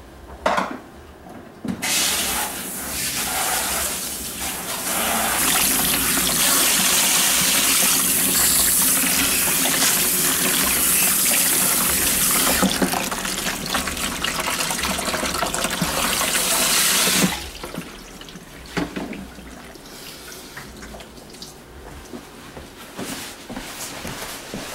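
Water running from a salon shampoo-bowl hand sprayer over a client's hair into the bowl: a steady hiss that starts sharply about two seconds in and cuts off after about fifteen seconds, with a short knock just before it starts.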